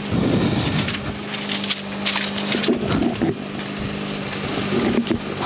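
1988 VW GTI rally car's engine idling, heard from inside the cabin as a steady hum, with a few short irregular bursts of knocking and rattling near the start, in the middle and near the end.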